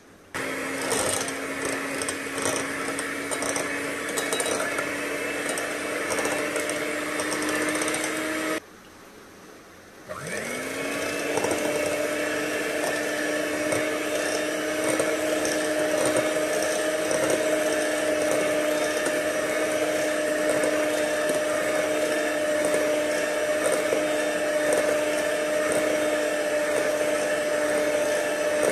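Scarlett electric hand mixer running with its beaters in a bowl of eggs and then cake batter, a steady motor whine with some clicking in the first stretch. It cuts off about eight and a half seconds in and starts again a second and a half later, its pitch rising as the motor spins back up.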